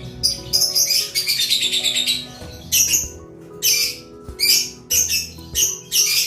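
Lovebird chick calling while being hand-fed with a spoon: about nine bursts of rapid, high-pitched chirping, the begging calls of a nestling wanting food. Faint background music runs underneath.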